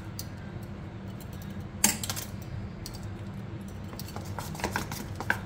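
A steel spoon clicking and scraping against a stainless steel pot while thick gram-flour batter is stirred. The clicks are scattered, loudest about two seconds in, with a cluster near the end, over a low steady hum.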